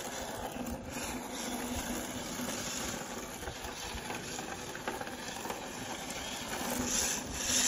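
Tamiya electric radio-controlled drift car sliding around on concrete: a steady hiss of hard drift tyres scrubbing, with a faint steady whine under it. The hiss grows briefly louder about seven seconds in.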